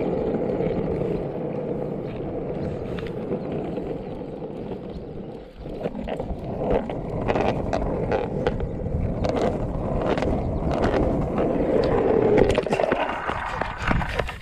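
Longboard wheels rolling over rough asphalt: a steady, loud rumble, with scattered clicks and knocks through the second half.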